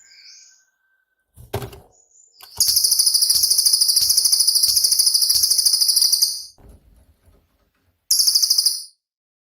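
Cililin songbird singing a very fast, high, rattling trill of about four seconds, then a shorter burst of the same trill near the end. These are the rapid 'tembakan' bursts that make it a model song for training other songbirds. Faint low knocks sound under the first trill.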